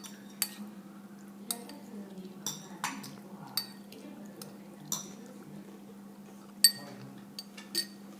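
Cutlery clinking against dishes while eating: about ten light, irregular clinks with a short metallic ring, the loudest about two-thirds of the way through, over a faint steady low hum.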